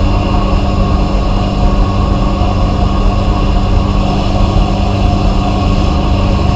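Vapor blasting cabinet running: a steady machine hum under a constant hiss of spray.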